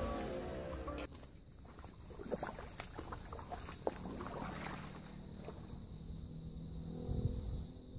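Edited-in electronic music cuts off about a second in, then water splashing and sloshing as a person wades through ankle-deep water at the edge of a lake. A faint steady high whine sits under it.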